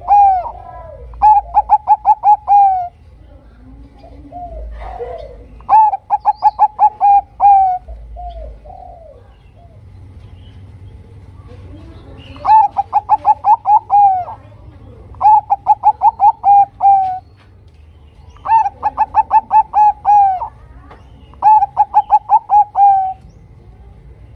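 Bangkok-strain zebra dove (perkutut) singing its cooing song: six loud phrases of quick staccato notes, each phrase about a second and a half long and ending on a drooping note, with softer, lower coos in the pauses between.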